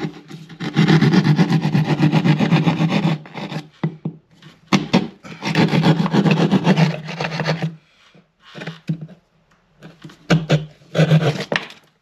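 Drywall jab saw cutting a gang-box opening in a drywall wall: quick back-and-forth sawing strokes in two long runs, a pause of about two seconds with a few scattered knocks, then a shorter run of strokes near the end.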